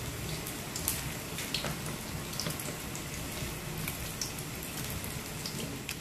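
Pot of tom yum broth with raw prawns in it simmering, a steady bubbling with scattered small pops.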